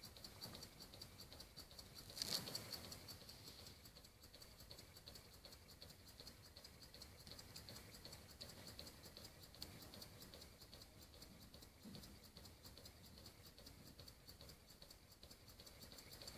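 PM Research mini double-acting oscillating steam engine running slowly on compressed air: a faint, quick patter of ticks and exhaust puffs. There is one louder click about two seconds in.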